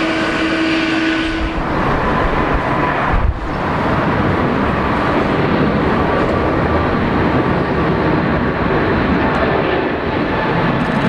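Jet engines of a Boeing 777-381 airliner running during its departure: a steady whine with several held tones for about the first second and a half, then a steady rush of jet noise with faint tones, briefly dipping a little over three seconds in.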